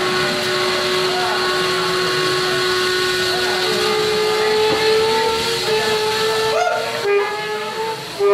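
Experimental improvised drone music: long held saxophone tones over a dense hissing wash of noise. One steady pitch gives way to a slightly higher one about four seconds in, and further held tones join near the end.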